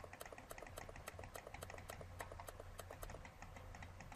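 Faint, rapid, evenly spaced clicking, about six clicks a second, over a steady low electrical hum.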